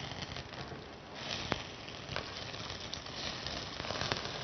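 Small meatballs frying in a little oil in a pan: a steady sizzle with scattered crackles and pops, a little louder from about a second in.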